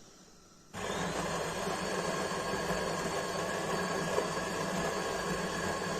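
Built-in coffee grinder of a De'Longhi Dinamica Plus bean-to-cup espresso machine grinding beans for a cappuccino: a steady, a little loud mechanical hum that starts suddenly about a second in.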